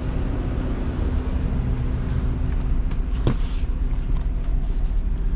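Vehicle engine idling with a steady low hum, and a single sharp click about three seconds in.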